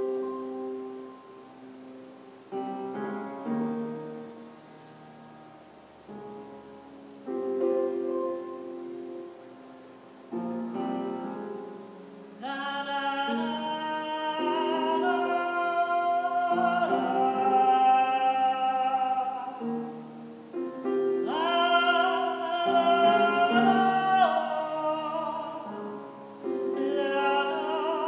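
Grand piano playing slow, separate chords in an improvised performance; about twelve seconds in, a woman's voice comes in over it, singing long, held operatic notes.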